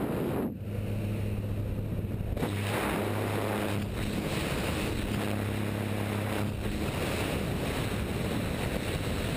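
Steady drone of a Cessna jump plane's engine and propeller under a loud rush of wind at the open door and over the camera microphone. The wind rush grows louder about two seconds in.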